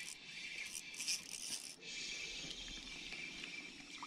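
Spinning reel being cranked while a hooked perch is played in on a bent spinning rod, the fish splashing at the surface near the end.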